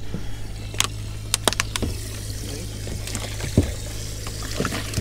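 Water trickling on a boat, with several sharp clicks in the first couple of seconds and a knock about three and a half seconds in, over a steady low rumble.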